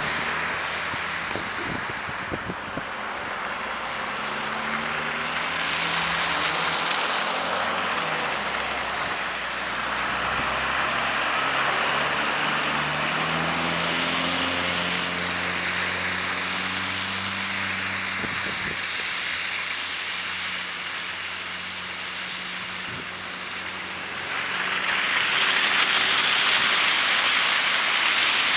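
Street traffic: vehicle engines, a school bus among them, running and pulling away, one engine climbing in pitch around the middle, over a steady hiss of tyres on the wet, snowy road that grows louder near the end as a vehicle passes close.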